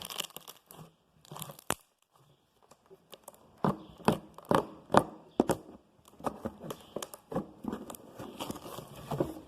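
Slime with styrofoam beads (floam) being squeezed and stretched by hand, giving irregular sharp crackles and pops. A few come at first, then a dense run starts about a third of the way in.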